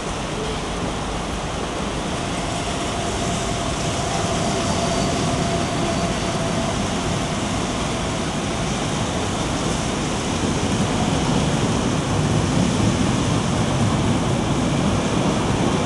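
Kowloon–Canton through train, a locomotive hauling double-deck coaches, running through the station without stopping. A steady rushing rumble of wheels on track that grows louder about ten seconds in as the coaches go by.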